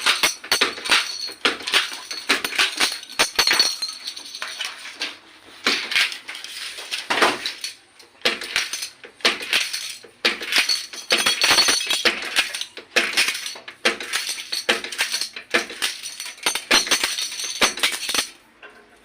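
Pin-badge making machine for 44 mm badges running, a dense, irregular clatter of metal clinks and rattles that pauses briefly a few times and stops near the end.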